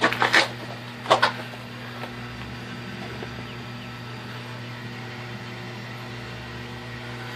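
Steady low hum of the Holstein Model 150 corn roaster's small electric drive motor running, turning the roasting baskets.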